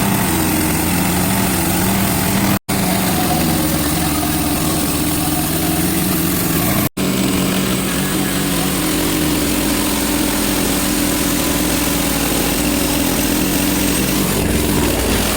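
Sawmill's engine running steadily under load while milling a log, cutting out abruptly for an instant twice.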